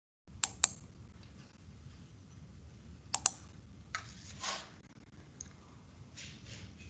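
A few sharp clicks at a computer: a quick pair about half a second in, another pair about three seconds in, then a single click and a short soft rustle, all over a faint steady hum and hiss.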